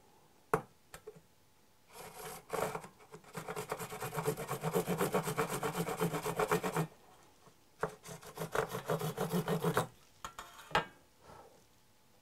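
Jeweller's saw cutting a groove into a mother-of-pearl disc with quick, even back-and-forth strokes, in two runs with a short pause about seven seconds in. A few light clicks fall before and after the sawing.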